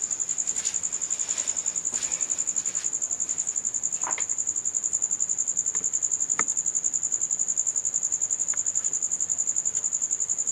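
Insect chirping: a high, steady trill of rapid, even pulses. Two faint knocks sound about four and six and a half seconds in.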